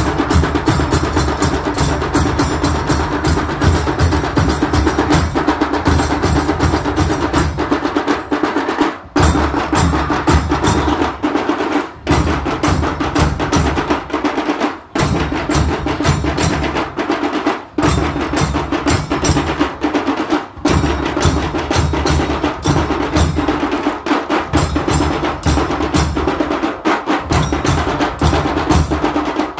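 Dhol and tasha drum ensemble playing loud and fast: dense rapid stick strokes on the small tashas over the deep beat of the big dhols, with a few brief breaks where the drums stop together for an instant before coming back in.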